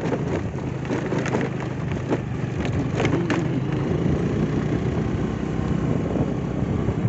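Motorcycle engine running steadily while it is ridden, with road and wind noise and a few sharp knocks or rattles in the first half.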